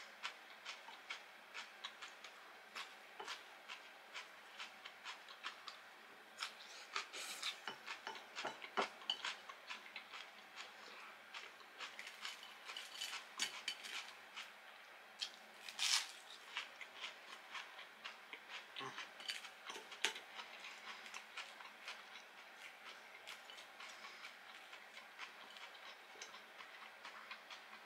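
Close-up eating sounds: steady chewing with small wet mouth clicks, and now and then a sharper clink of utensils against dishes, the loudest about sixteen seconds in.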